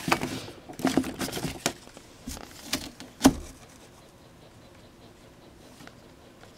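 Pages of a glossy paper booklet being flipped and handled, a quick run of rustles and taps with one sharper snap about three seconds in, then quiet.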